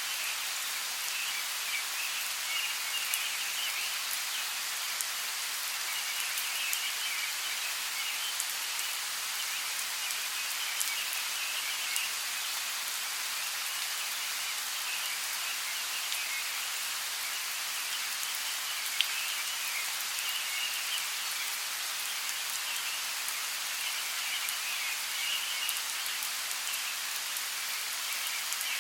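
Steady rainforest rain falling on leaves, with scattered single drops ticking through the hiss. A high-pitched chorus swells and fades in waves every few seconds above the rain.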